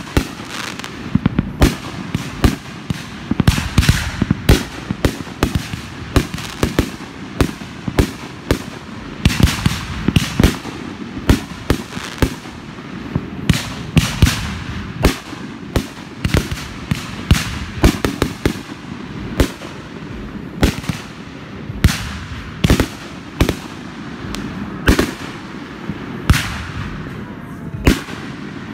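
Aerial fireworks bursting in a continuous, irregular barrage of sharp bangs, about one to three a second.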